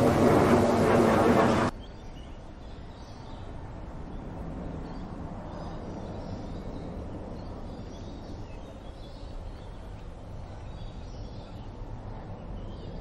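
A loud, dense rumbling noise cuts off abruptly about two seconds in. It leaves a steady outdoor background with faint, scattered bird calls.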